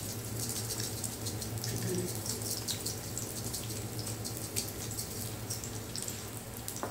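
Eggs frying in oil on a flat griddle pan, a steady sizzle full of tiny crackles and pops, over a constant low hum.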